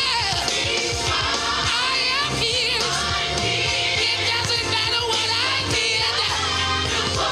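Background music: an upbeat song with singing, a choir-like backing and a steady beat.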